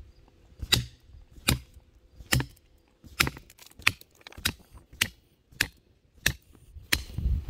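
Hammer blows on a steel rock chisel wedged in a crack in the rock ledge: about ten sharp metallic strikes, a little more than one a second, driving the chisel in to split the rock open.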